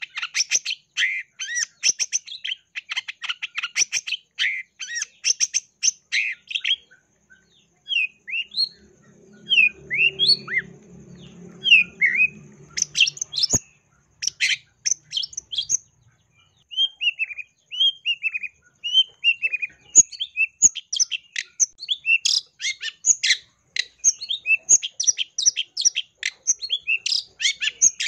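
Long-tailed shrike (cendet) singing vigorously: a rapid stream of sharp chattering notes, slowing in the middle to separate slurred and falling whistles with a short break, then fast chatter again. A faint low hum sits under the slower passage for a few seconds.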